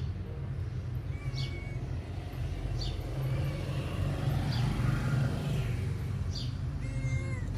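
A steady low rumble runs throughout, and a cat gives one short meow near the end.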